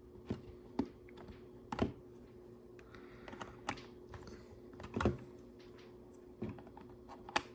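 Plastic LEGO bricks clicking and tapping as pieces are handled and pressed together: scattered sharp clicks about once a second, the loudest about five seconds in.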